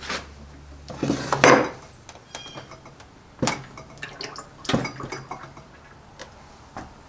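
Metal clinks and knocks from hand tools and parts being handled on a work bench: a short cluster of clanks about a second in, then single knocks a few seconds apart.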